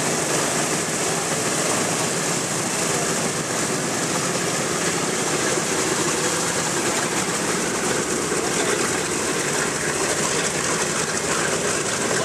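Boeing B-17 Flying Fortress taxiing, its four Wright R-1820 Cyclone nine-cylinder radial engines running steadily.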